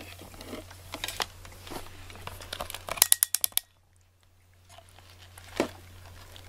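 Cat licking and eating Churu lickable paste treat from a small dish: a run of small wet lapping clicks. About three seconds in there is a quick burst of louder, sharper clicks.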